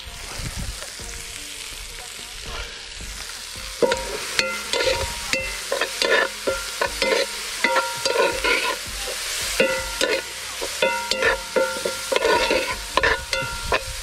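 Vegetables frying and being stirred in an aluminium pot over a wood fire. A steady sizzle runs throughout, and from about four seconds in there is a run of quick clinks and scrapes, several a second, with the pot ringing briefly after each stroke.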